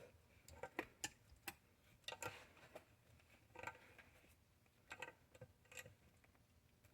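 Faint, irregular metal clicks and ticks from a slotted pipe nipple being worked back and forth with a small pipe wrench, chasing crusty, dirty pipe threads in an intake manifold port.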